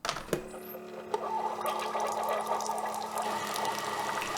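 Keurig single-serve coffee maker brewing: its pump hums steadily, and from about a second in coffee streams into the cup.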